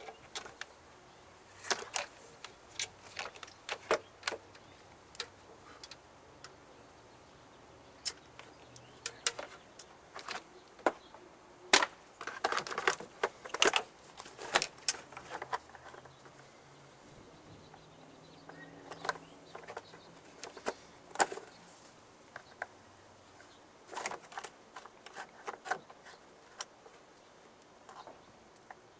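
Irregular sharp clicks and clacks of small parts and tools being handled during fuse-box wiring work, some in quick clusters, with quiet stretches between.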